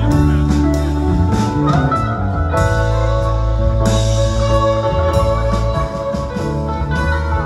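Live rock band playing, with electric guitar over drums and a steady low end; cymbals are struck a few times, loudest around the middle.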